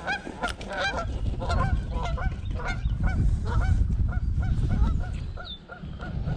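Birds calling over and over in short, quick, pitched calls, thickest near the start and thinning out later, over a low rumble on the microphone that swells through the middle.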